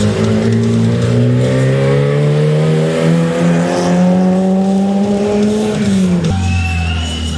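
Historic Lada Samara hatchback rally car accelerating hard, its engine pitch climbing steadily for about six seconds and then falling away. Near the end the sound switches abruptly to a lower, steady engine note.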